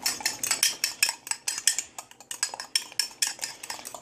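A metal fork whisking egg and milk in a mug, clinking quickly and repeatedly against the sides.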